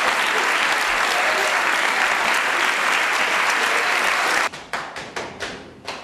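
Theatre audience applauding in a dense, even wash of clapping; about four and a half seconds in it drops abruptly to thinner, scattered claps that trail off.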